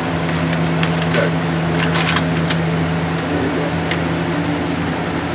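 A box fan running with a steady hum and rush of air, and now and then short crinkling rustles of peel-and-stick camo wallpaper being smoothed onto a wall, the loudest about two seconds in.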